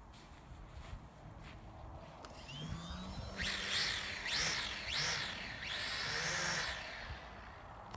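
Radio-controlled model plane rushing past in a fast low pass: a whooshing sound that swells and fades several times between about three and seven seconds in.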